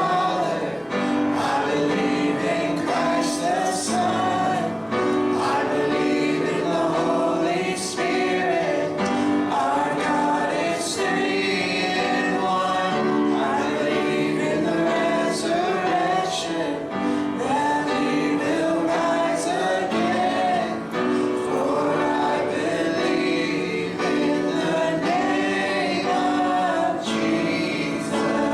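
A choir singing a gospel worship song over instrumental accompaniment, with a steady, full sound.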